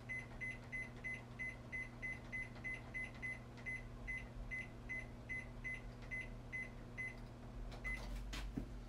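Electric oven's control panel beeping in a quick run of short high beeps, about three a second at uneven gaps, as its temperature and time (180 degrees, about 30 minutes) are being set. The run stops about seven seconds in, one more beep follows, then a few clicks; a steady low hum lies underneath.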